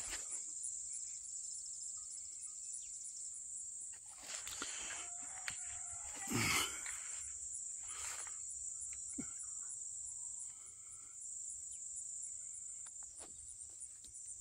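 Insects trilling steadily at a high pitch, with a few brief rustles and knocks, the loudest about six and a half seconds in.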